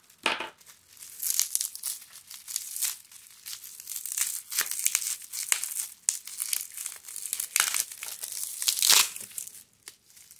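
Plastic bubble wrap crinkling in the hands as it is pulled and peeled off a wrapped item, in irregular bursts, the loudest about nine seconds in.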